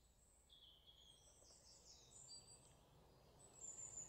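Near silence, with faint high bird chirps that grow a little stronger near the end.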